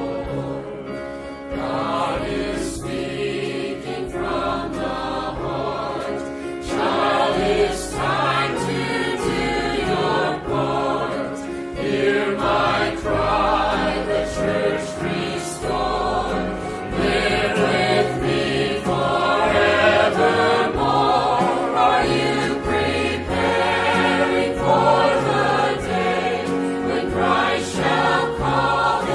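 Church choir singing a hymn in sustained chords over a held bass accompaniment.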